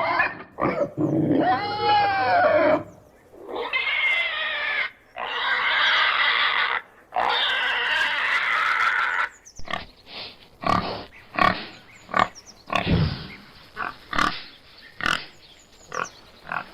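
Domestic pig squealing: four long, loud, shrill squeals, one after another. After about nine seconds it changes to a string of short grunts and squeaks, one or two a second.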